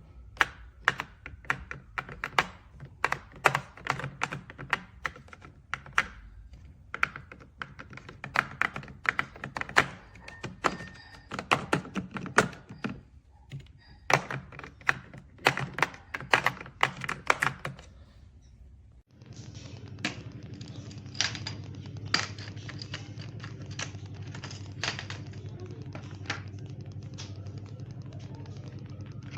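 Irregular clicks and clacks of metal sockets and ratchet parts from a DEWALT mechanics tool set being handled, over a low hum. A bit past halfway the background changes abruptly to a steadier hum, and the clicks become sparser.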